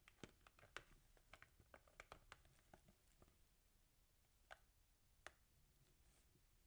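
Long gel nails tapping faintly on a plastic-wrapped cardboard cake box. There is a quick run of light taps over the first three seconds, then a few single taps.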